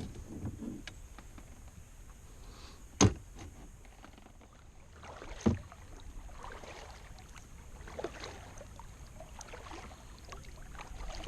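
Sounds of a Sundolphin Excursion 12 SS sit-inside kayak on the water: soft, uneven splashing and swishing of water, with two sharp knocks, about three seconds in and again two and a half seconds later.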